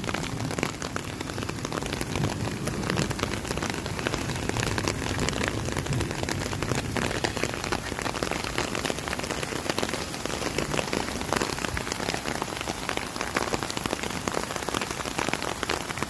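Steady rain falling, with dense individual drop hits close by throughout.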